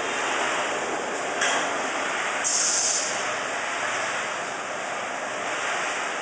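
Food-processing machinery running in a workshop: a steady rushing noise, with a brief louder hiss about a second and a half in and again for about half a second around the middle.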